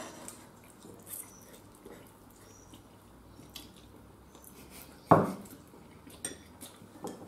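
People eating noodles with chopsticks: soft slurps and small clicks of chopsticks against porcelain bowls, with one louder sucking slurp about five seconds in.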